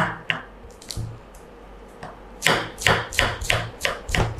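Kitchen knife chopping fresh herbs on a wooden cutting board. A few separate cuts come first, then a quiet moment, then from about halfway a quick, even run of chops, about four to five a second.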